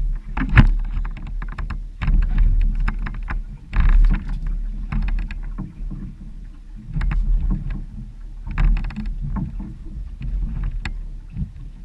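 Choppy water slapping against a small open boat and wind buffeting, a loud, uneven low rumble. Irregular knocks and clatter run through it.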